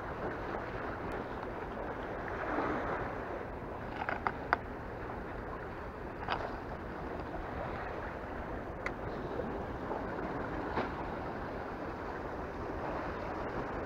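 Sea water washing steadily, with a few sharp clicks: a quick cluster about four seconds in, then single ones every couple of seconds.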